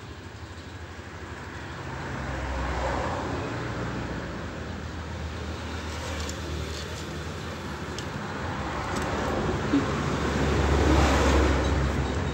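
Low background rumble that swells and fades twice, with a few faint clicks.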